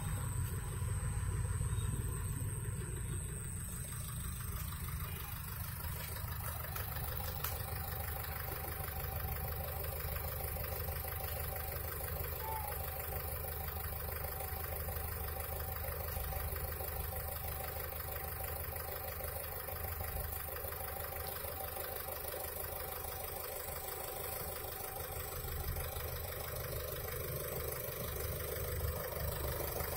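A steady low hum like an engine running, with a thin steady high-pitched whine above it.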